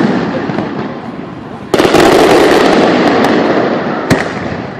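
Fireworks display: a dense barrage of bursts that jumps up suddenly about two seconds in and slowly dies away, with one sharp bang near the end.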